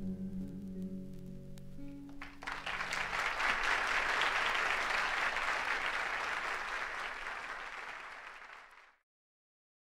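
The closing notes of the guitar and keyboard accompaniment hang for a couple of seconds. Then the concert audience breaks into applause about two and a half seconds in. The applause thins out and is cut off abruptly near the end, where the record track ends.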